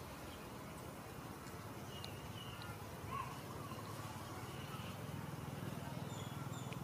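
Quiet outdoor background with a steady low hum and a few short, faint high-pitched chirps around the middle.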